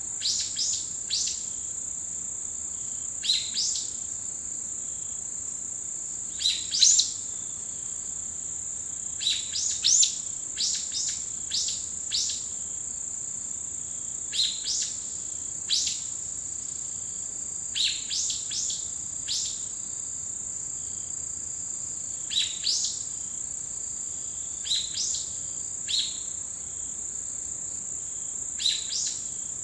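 An autumn insect chorus gives a steady, unbroken high-pitched trill, while birds give short calls that sweep down in pitch, repeated every second or two and often in quick runs of several.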